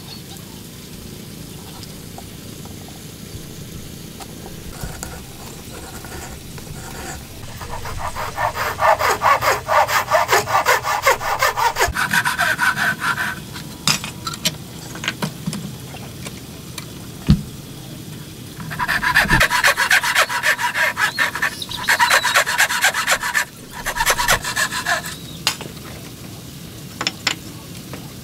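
Handsaw cutting through a piece of timber: two spells of quick, rhythmic strokes, the first starting about eight seconds in and the second about eighteen seconds in, with a few sharp knocks between them.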